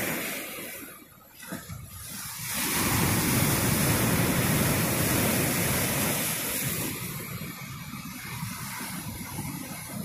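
Ocean surf breaking over shoreline rocks: a wave crashes about two and a half seconds in and churns loudly for several seconds, then eases off into a lower, steady wash of foam.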